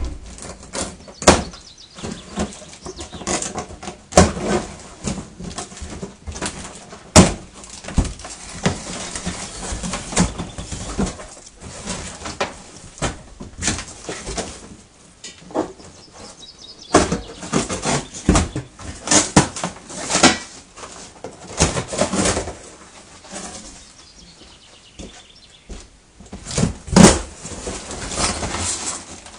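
Cardboard packaging being opened and handled: box flaps and sheets rustling, flapping and tearing, broken by many irregular sharp knocks and clatters.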